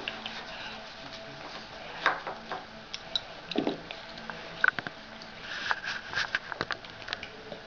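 Scattered small taps and clicks from a baby eating with its hands at a plastic high-chair tray, chewing and touching the food, more of them near the end, over a faint steady hum.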